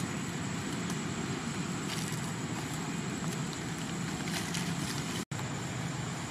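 Steady outdoor background hiss and low rumble with a few faint rustles; the sound cuts out for an instant about five seconds in.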